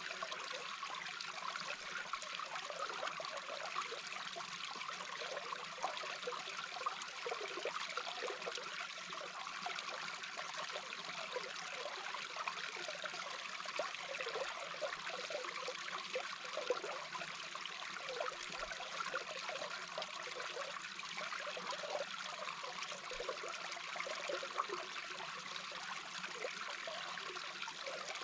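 Small babbling brook recorded from under the water: a steady rush of flowing water with many small bubbling, trickling sounds underneath.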